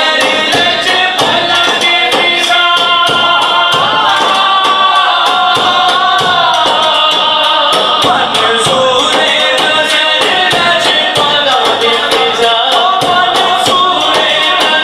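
Man singing a devotional Punjabi song into a microphone, his voice amplified, over a large frame drum (daf) beaten by hand in a steady, quick rhythm.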